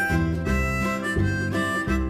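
Background instrumental music: a harmonica melody over guitar, moving note to note at a steady pace.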